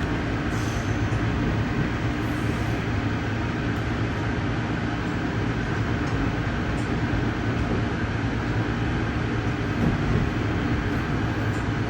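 Steady ride noise inside a moving Amtrak passenger car: a continuous low rumble of wheels on rail with a hiss over it.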